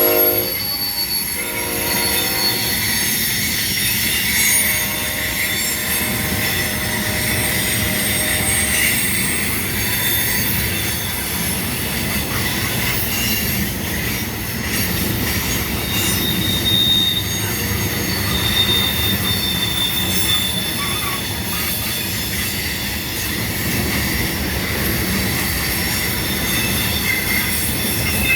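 Loaded coal train rolling past: steel wheels on the rails with a steady rumble, and high wheel squeal coming and going over it.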